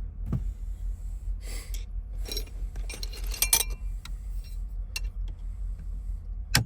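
Small metal clicks, taps and scraping of hand tools working at a steering-column ignition lock housing while a plastic or metal tab is being broken off, with a sharp click near the end. A steady low hum runs underneath.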